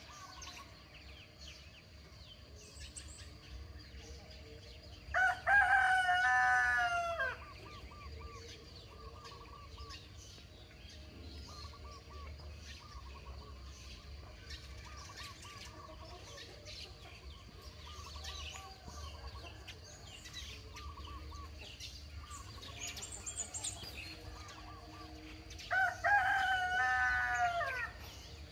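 A rooster crows twice, about twenty seconds apart, each crow lasting about two seconds and falling off at the end. Quieter short bird calls come between the crows.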